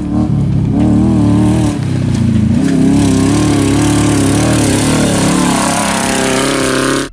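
Off-road race vehicle's engine running hard, its pitch wavering up and down over a steady rushing noise, stopping abruptly at the end.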